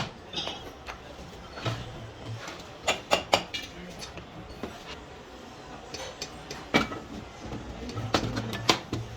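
Metal parts and hand tools clinking and knocking against each other in irregular, sharp strikes during hydraulic pump repair work, with small clusters of knocks about three seconds in and near the end.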